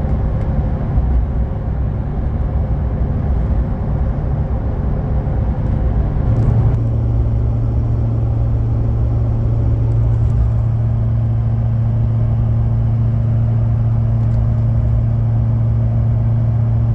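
Cab sound of a Chevy Duramax turbodiesel pickup cruising at highway speed while towing a heavy fifth-wheel: a dense engine and road rumble. About seven seconds in it changes abruptly to a very steady low drone.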